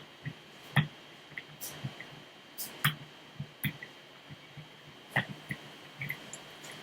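Small metallic clicks and taps of a lock pick working the pin stack of a Master Lock Pro Series padlock under tension, irregular, with two louder clicks about one and three seconds in.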